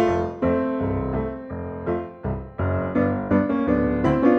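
Background piano music, single notes and chords struck about twice a second, each ringing and fading before the next.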